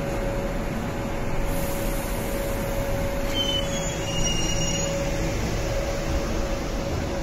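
MTR Kwun Tong line C-train moving along the platform, with a steady hum from the train throughout. Thin, high wheel squeals come in about three seconds in and last around a second and a half.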